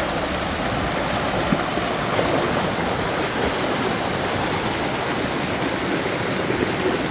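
River water rushing steadily, a constant even hiss of flowing water.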